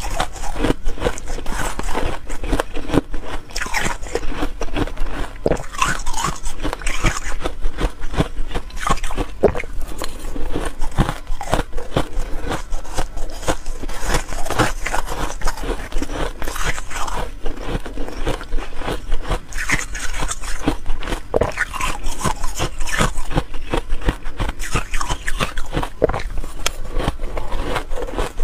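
Shaved ice being crunched and chewed in the mouth: a dense, continuous crackle of small crunches.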